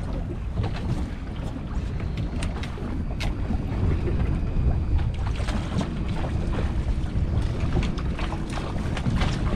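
Wind rumbling on the microphone over water lapping and slapping against a boat's hull, with scattered sharp splashes and clicks.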